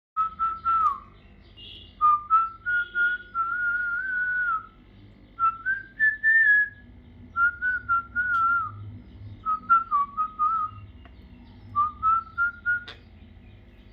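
Parrot whistling a tune in about six short phrases of a single wavering note, with brief clicks between the phrases.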